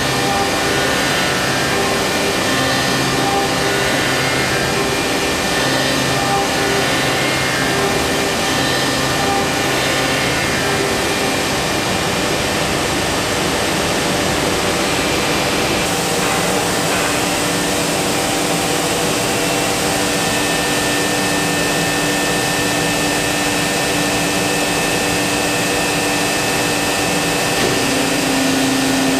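Busellato Jet Optima C21 CNC woodworking machining centre running: a steady rushing noise with several steady whining tones from the router spindle and its dust extraction. The tones shift about halfway through and again near the end, as the machine changes its work.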